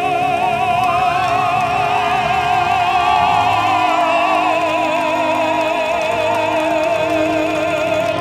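A male singer performs live with band accompaniment, holding one long note with vibrato through most of it.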